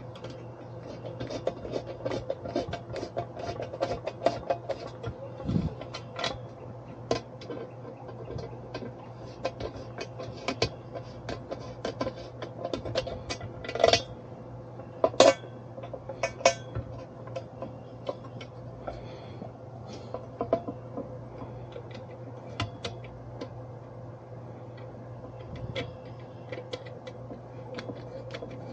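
Scattered metal clinks and knocks as hand tools are handled and rummaged through, with a few louder clanks about halfway through, over a steady low hum.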